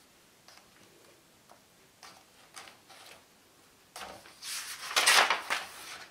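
A large picture-book page being turned, a short papery rustle about four seconds in, after a few faint clicks.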